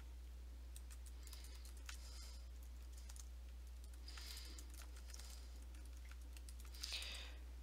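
Computer keyboard typing in short flurries of keystrokes, faint, with a louder flurry near the end.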